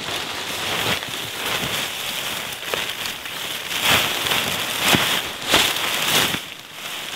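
Pomoly LEO 2 hot tent fabric rustling and flapping as it is pulled open and shaken out, with several louder swishes about four to six seconds in.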